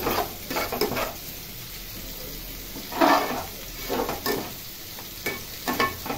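A steel spoon scraping and stirring spiced masala frying in an aluminium pot, several scrapes against the pot over a steady sizzle. The loudest scrape comes about three seconds in.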